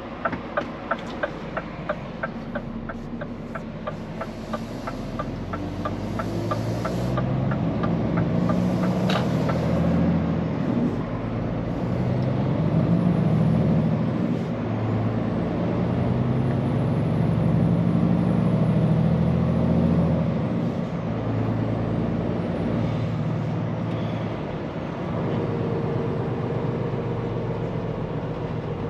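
Scania P410 truck's diesel engine pulling away and accelerating, its revs climbing and dropping back at gear changes several times before settling to a steadier run near the end. Regular ticking, typical of the turn-signal indicator, sounds for the first few seconds and fades out.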